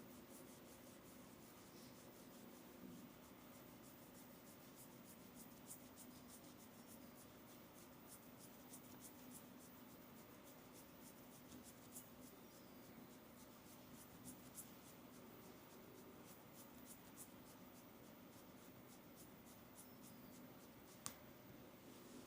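Faint rubbing and crackling of fingers massaging the scalp and working through hair: a dense, irregular patter of tiny ticks, with one sharper click about a second before the end.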